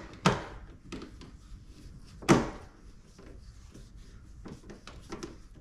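Screwdriver and carbon fiber fender flare being worked at a car's wheel well: two sharp knocks about two seconds apart, then lighter clicks and taps as the flare is pressed and fastened into place.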